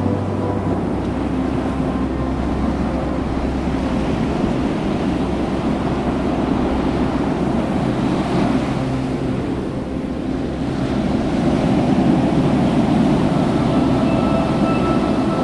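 Ocean surf and wind buffeting the microphone: a steady rushing noise that swells a little near the end, with a few faint held tones over it.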